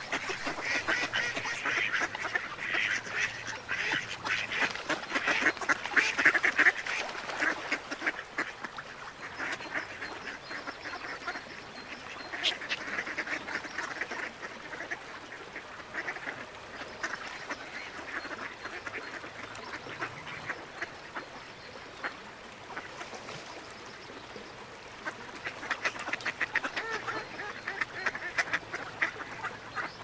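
Ducks quacking and chattering in rapid runs of short calls, loudest over the first several seconds and again near the end, with quieter spells between.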